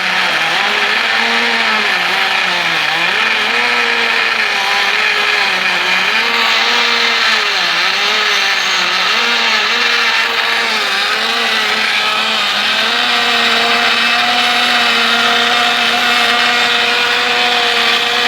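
Car engine running with the manual gearbox in neutral and the clutch engaged, filmed under the bonnet, carrying the extraneous whine that appeared after the clutch, release bearing and gearbox input-shaft bearing were replaced. The whine's pitch wavers for the first dozen seconds, then holds steady.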